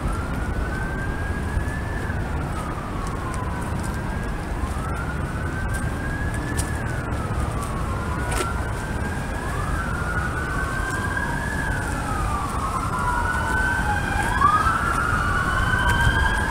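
Emergency vehicle siren wailing, its pitch slowly rising and falling about every four seconds. In the second half a second siren overlaps it and the sound grows a little louder.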